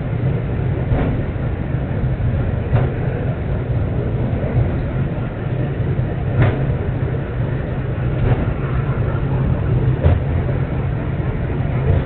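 Takao cable car, a cable-hauled funicular, running along its rails: a steady low rumble with a light click about every two seconds.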